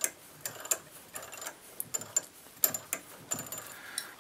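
Moen cartridge puller being turned by its T-handle to draw a stuck faucet cartridge out of the valve body: irregular metal clicks and short squeaks as the tool works against the cartridge's binding gaskets.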